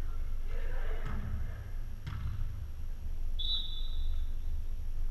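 Volleyball gym ambience: a steady low hum with faint players' voices and two light knocks in the first two seconds, then a brief high tone about three and a half seconds in.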